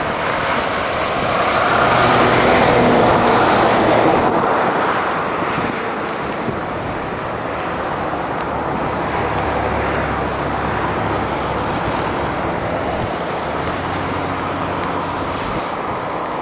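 A car driving: steady engine and road noise, swelling louder for a couple of seconds about two seconds in.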